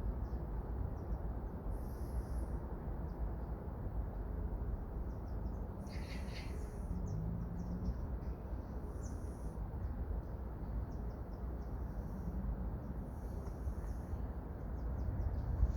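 Outdoor background noise: a steady low rumble, with short faint high-pitched chirps every few seconds.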